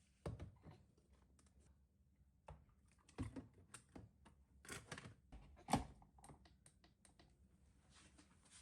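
Scattered light clicks and taps of small objects being handled, with one sharper knock a little before six seconds in.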